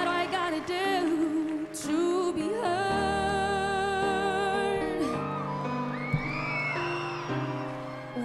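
A teenage girl singing a slow ballad, holding long notes with vibrato, to her own grand piano chords.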